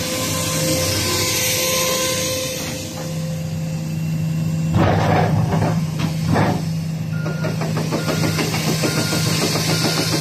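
Komatsu PC450-8R crawler excavator's diesel engine running steadily. About halfway through comes a burst of loud clanks, and from about seven seconds in a travel alarm beeps repeatedly, a little under twice a second.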